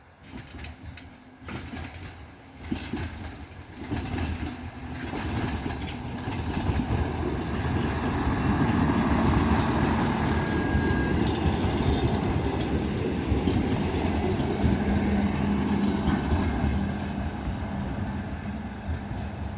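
RA2 diesel railbus approaching and running past: wheels rumbling on the rails with the diesel's hum. It builds over the first several seconds, stays loud through the middle and eases slightly near the end, with scattered clicks as it approaches.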